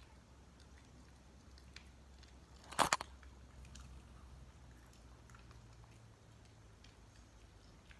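A pet chewing food: faint scattered chewing clicks, with one loud crunch about three seconds in.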